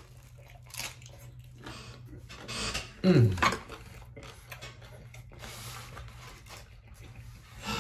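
A person biting and chewing a hard-shell beef taco up close, with soft crunching and wet chewing. About three seconds in comes a short low hum of appreciation that falls in pitch.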